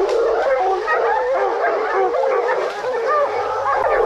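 A pack of bear hounds baying together at a treed black bear: many drawn-out calls overlapping without a break. It is the steady chorus hounds give when they have a bear treed.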